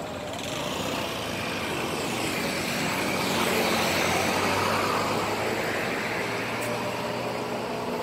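A road vehicle passing close by, its engine and tyre noise swelling to a peak about halfway through and then fading, with a low engine hum lingering afterwards. No horn is sounded.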